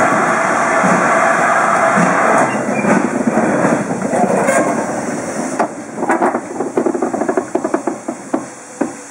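GWR 4200-class 2-8-0 tank locomotive 4247 rolling slowly past bunker-first: a loud steady hiss of steam for the first half, then a run of clanks and clicks from the wheels and motion that grow sparser and fade toward the end.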